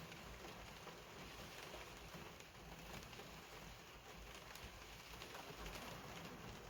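Heavy rain falling: a steady, faint hiss of rain with scattered taps of drops.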